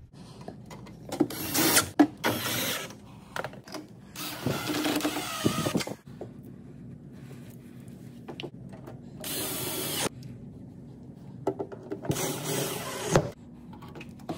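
Four bursts of scraping and rattling, each lasting one to two seconds, from parts being handled and moved during appliance repair work, over a low steady hum.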